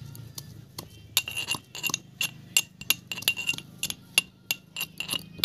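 A metal pestle pounding in a small metal mortar cup, making a fast, irregular run of ringing clinks, about three to four strikes a second.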